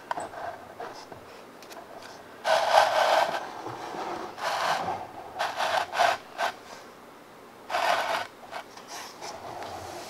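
A bath bomb bar and the wooden cutting board it sits on scraping and rubbing, in about four short scrapes, as the bar is slid off the board into a tub of water.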